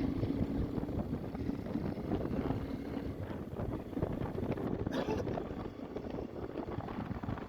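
Motorcycle engine running while riding, with wind rushing over the microphone; a faint steady engine hum fades after about three seconds.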